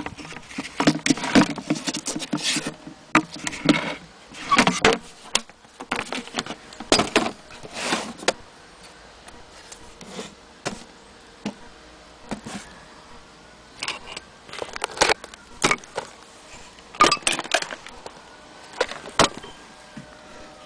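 Irregular clicks, knocks and rattles from handling a sewing machine's carrying case and the machine itself. They come thick and fast for the first eight seconds or so, then in short scattered clusters.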